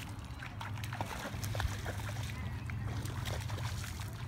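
Bare feet of a small child splashing through shallow standing water, an irregular run of light splashes over a steady low hum.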